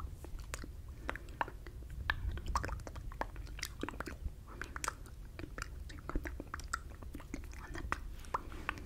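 Close-miked wet mouth sounds: irregular lip smacks and tongue clicks from silently mouthing words into the microphone without voice, the ASMR 'fishbowl effect'.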